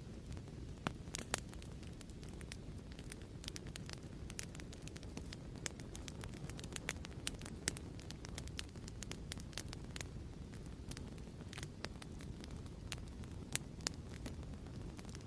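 Crackling fireplace: a steady low rumble of burning with irregular sharp pops and crackles scattered throughout.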